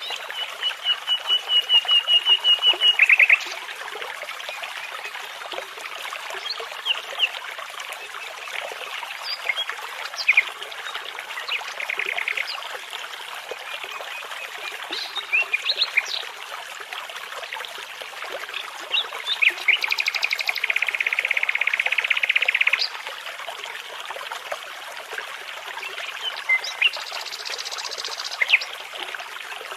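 Common nightingale singing over a steadily babbling brook: a run of repeated whistled notes that grows louder in the first few seconds, then short varied phrases with pauses between them, and a long rapid trill about two-thirds of the way through.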